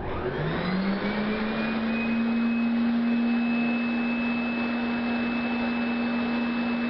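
Upright vacuum cleaner motor starting up, its pitch rising over about two seconds and then running steadily with a high whine.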